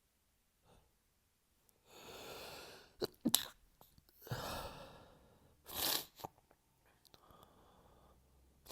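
A person sneezing twice in an allergy sneezing fit, each sneeze preceded by a drawn-in breath; the sneezes come about two and a half seconds apart.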